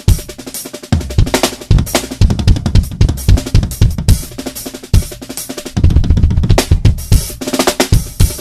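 Drum kit being played: bass drum, snare and cymbal hits in quick succession, ending in a fast, even run of strokes.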